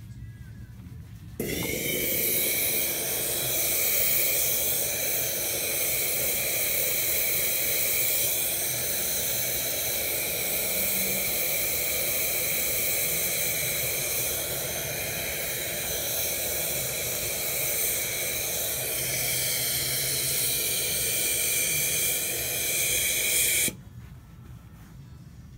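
Hat steamer blowing a steady jet of steam into a felt hat to soften it for reblocking. It comes on about a second and a half in and cuts off suddenly near the end.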